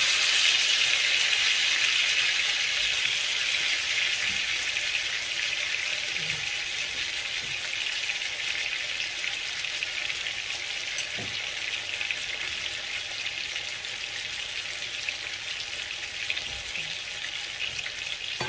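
Two thick beef steaks sizzling in a frying pan: a steady frying hiss that gradually dies down.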